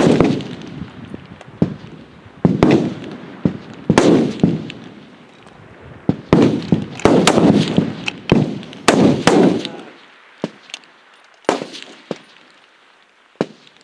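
Rifle shots on the firing line of a long-range F-Class match: about a dozen sharp reports at irregular intervals from several rifles, each trailing off in an echo. The shots come thick in the first ten seconds and fewer and fainter near the end.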